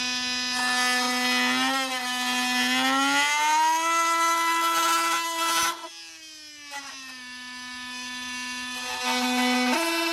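Milwaukee M18 FUEL cordless oscillating multi-tool running on auto mode, its wood blade cutting into an old 2x4 with a steady buzz. The pitch climbs about three seconds in, drops back near the six-second mark and jumps up again near the end as the tool changes speed.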